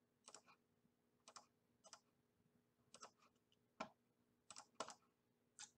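Faint computer mouse clicks, about a dozen, short and sharp and spaced irregularly.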